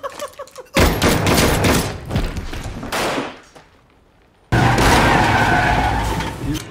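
Film gunfire: a rapid volley of gunshots for about two and a half seconds. After a short lull a second loud, sustained burst of noise with a ringing tone through it comes in.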